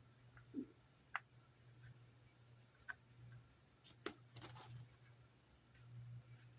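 Near silence with a faint steady low hum and about half a dozen small, scattered clicks and taps, typical of plastic model parts and tools being handled on a workbench.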